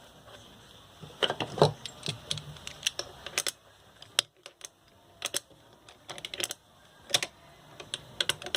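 Irregular metal clicks and short knocks from a small bearing puller being worked on a ceiling fan's rusted 6201 bearing, which is nearly off its shaft.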